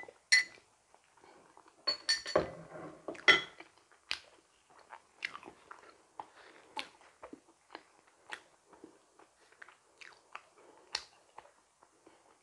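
A person biting and chewing a donut, with crisp crunches. The loudest bites come in the first three and a half seconds, followed by softer, irregular chewing clicks.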